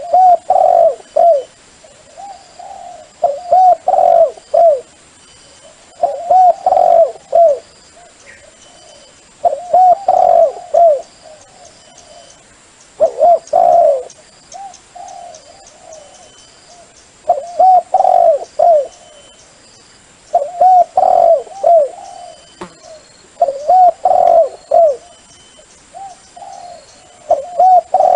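Spotted dove cooing: phrases of several short, arched coo notes, repeated about every three seconds.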